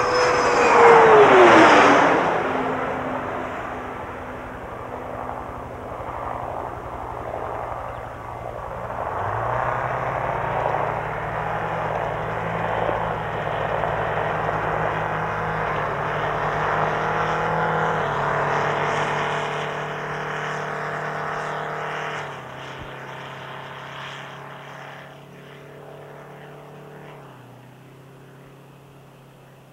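A jet passes loudly in the first two seconds, its whine falling in pitch. Then comes the steady whine and rumble of the Space Shuttle orbiter Columbia rolling out on the runway after touchdown, its tones dropping in pitch in a few steps and fading toward the end as it slows.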